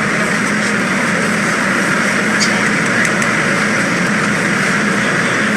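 MBTA Red Line subway car running between stations, heard from inside the car: steady wheel-on-rail and motor noise with a low, even hum.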